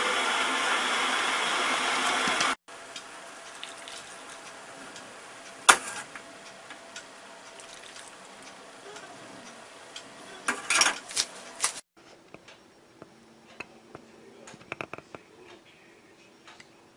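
A loud steady hiss cuts off sharply about two and a half seconds in. A metal ladle then pours hot noodle-cooking water into a porcelain bowl of noodles, with a sharp clink about halfway through and a quick run of clinks a few seconds later, followed by faint ticks.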